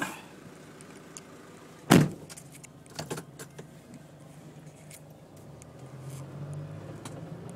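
Cabin sound of a 2000 Nissan Elgrand E50's 3.0-litre turbo-diesel driving slowly: a low, steady hum that grows a little stronger near the end. A single sharp knock comes about two seconds in, followed by a few lighter clicks a second later.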